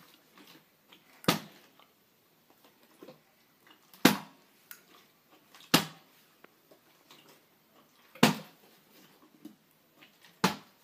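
Partly filled plastic water bottles flipped one after another and landing on a bed cover: five short thuds about two seconds apart.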